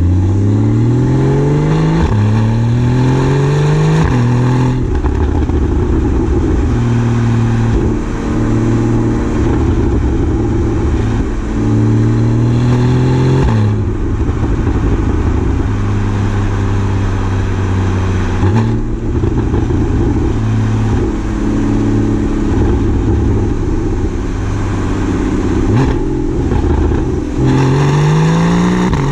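2014 Porsche Boxster S's 3.4-litre flat-six through its sports exhaust, heard right at the twin tailpipes while driving. The note rises in repeated pulls through the gears, with a short drop at each upshift, mostly in the first few seconds and again near the end, and holds steadier in between.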